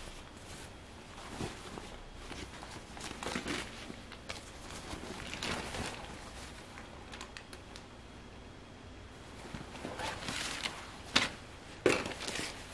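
Stiff denim fabric rustling and brushing in irregular swishes as hands handle a pair of trousers, with two sharp clicks near the end that are the loudest sounds.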